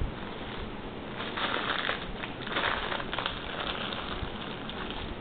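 Rustling, crinkling handling noise with a soft knock at the start, louder in two stretches about a second and a half and two and a half seconds in.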